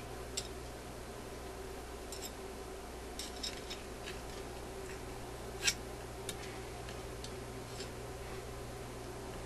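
Scattered small, sharp metallic clicks and ticks from hands working the parts of a jukebox selector mechanism, about eight of them, the loudest a little over halfway through, over a steady low electrical hum.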